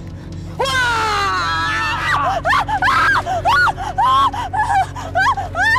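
A woman's terrified scream, falling in pitch, starting under a second in, followed by a run of short rising-and-falling wailing cries of panic.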